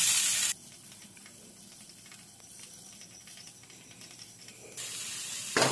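Garlic and onion sizzling in hot oil in a wok as a wooden spatula stirs them. The sizzle is loud at first, drops abruptly to a faint hiss about half a second in, swells again about a second before the end and finishes in a sudden loud burst of sizzling.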